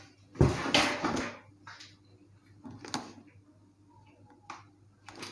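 Objects being handled and set down: a knock with a short scrape about half a second in, then a few faint taps and clicks.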